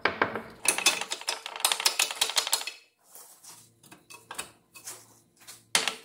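Hammer tapping a new lower ball joint into the control arm of a VW Golf/Jetta mk4, metal on metal: a quick run of light taps for a couple of seconds, then scattered clinks and one louder strike near the end. The joint won't slide in by hand and is being wedged into place.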